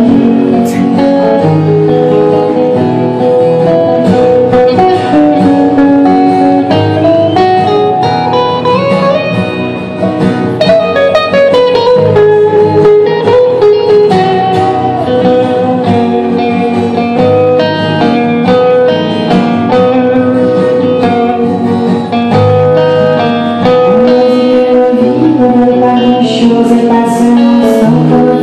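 Live guitar music from an acoustic guitar and a second guitar, playing an instrumental passage of quick melodic note runs with some sliding pitches.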